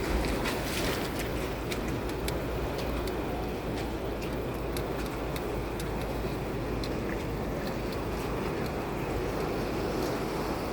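Vehicle driving off-road: steady engine and tyre rumble, with many scattered light clicks and rattles.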